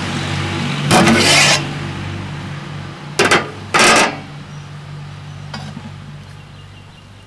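Aluminium lid of a large biryani pot scraping across the rim as it is lifted off at the end of dum cooking, in three short noisy scrapes: one about a second in and two close together a few seconds in. A steady low hum runs underneath and fades.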